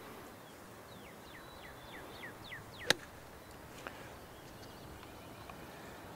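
A golf club striking the ball: one sharp crack a little under three seconds in. Before it, a bird sings a run of quick downward-slurred chirps.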